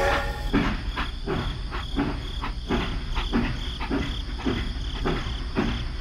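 Battery-powered toy train running along plastic track: a steady motor hum and thin high whine, with a regular beat about four times a second.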